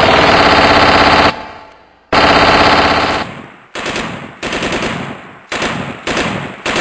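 Airsoft rifles firing on full auto: a long burst at the start, another just after two seconds, then a string of shorter bursts.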